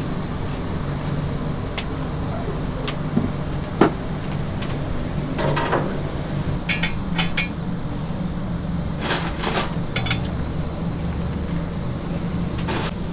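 Scattered clinks and knocks of dishes and metal utensils being handled, the sharpest knock about four seconds in, over a steady low hum.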